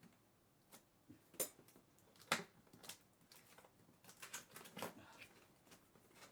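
A cardboard box being slit open and handled: scattered scrapes, clicks and taps, the sharpest about two seconds in, then a run of small rustles and taps a little after the middle.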